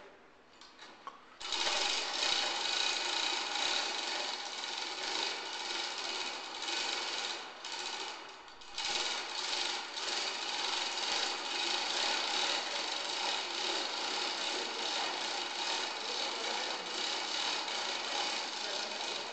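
A power tool runs almost without a break, starting about a second and a half in, with a short drop-out about eight and a half seconds in.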